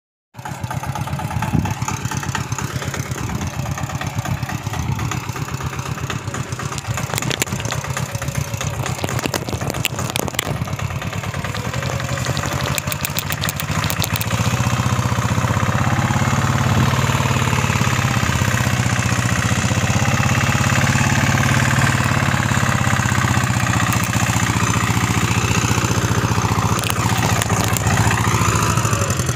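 The diesel engine of a Kailash Farm King sanedo mini tractor runs steadily as it pulls a cultivator through crop rows, with a fast, even firing beat. The sound cuts in just after the start and gets louder from about halfway through.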